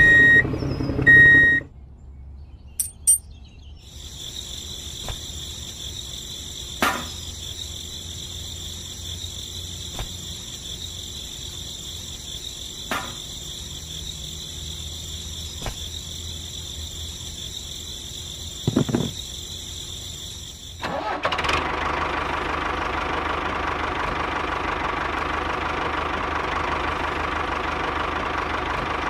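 Small motor running with a steady whine and occasional clicks, turning louder and rougher about three-quarters of the way through; two short beeps at the start.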